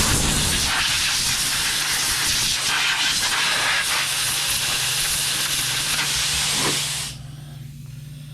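Compressed air hissing from an air compressor's blow nozzle, blowing dust out of a phone: one steady blast that starts suddenly and cuts off about seven seconds in. A low steady hum runs underneath.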